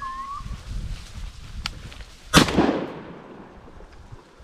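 A single shotgun shot about two seconds in, a sharp crack with a long echoing tail, fired at a woodcock. A lighter click comes shortly before it.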